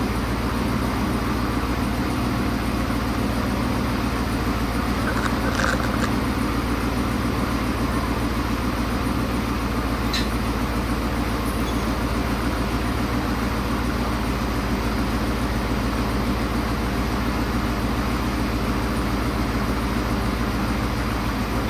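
Cammed 5.7 HEMI V8 (stage 2 cam) in a Dodge Charger R/T running steadily at idle, just after its first start following an engine swap.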